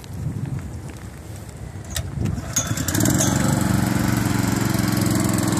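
Small engine of a 3-inch water pump, faint at first and then coming up to a steady idle about halfway through, louder from there on.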